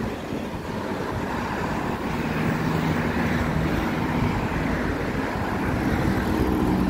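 Road traffic on a busy multi-lane street: cars and vans driving past with engine hum and tyre noise, a low engine drone coming in about two seconds in and growing a little louder.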